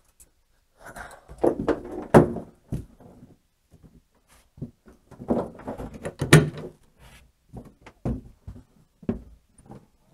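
Irregular thunks and knocks of a person climbing into a pickup truck bed and stepping about on its plastic bed liner, with lighter clatter of a wire-rope cable and its metal hook being laid out. The knocks come in two busy clusters, then singly.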